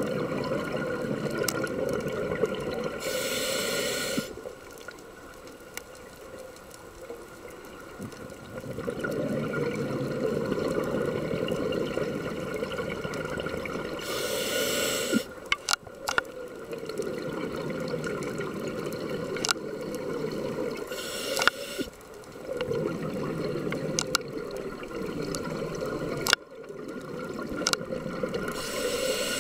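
A scuba diver breathing through a regulator underwater: a short hiss on each inhale, four times, each followed by several seconds of low, burbling exhaled bubbles. A few sharp clicks sound between breaths.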